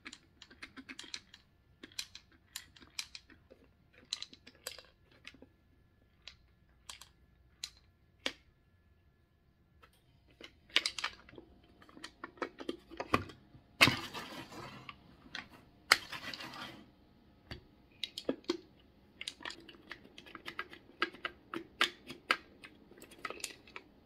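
Wooden puzzle box being handled and shaken: its sliding wooden bars and panels give irregular light clicks and knocks, with a few longer rattling bursts about halfway through as the box is shaken.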